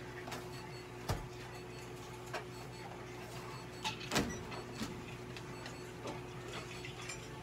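A grooming brush stroking through a cat's fur, soft strokes with a few light knocks, over a steady electrical hum.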